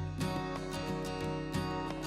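Background music led by strummed acoustic guitar, with regular strums.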